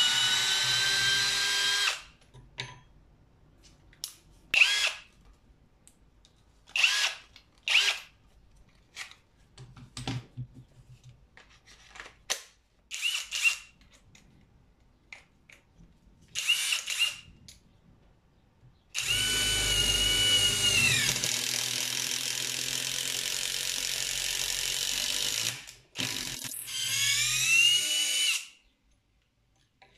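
Brushless motor of a Komson cordless drill whining as it is triggered: a run that ends about two seconds in, several short pulses of under a second, then a steady run of about six seconds, and a last run whose speed rises and falls under the variable trigger.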